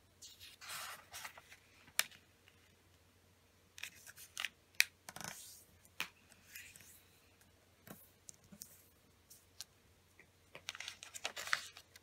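A square sheet of origami paper being handled and folded: rustles and slides of paper on the table, with short crisp clicks and crackles as folds are pressed and creased, in a few busy spells.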